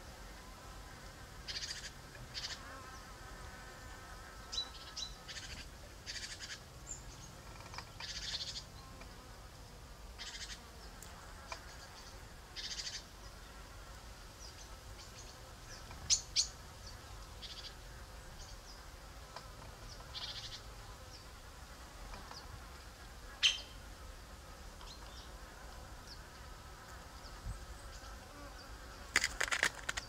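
Outdoor summer ambience dominated by insects: a fly buzzing close by for several seconds early on, and short high insect chirps at irregular intervals throughout. A few sharp ticks stand out, with a quick run of them near the end.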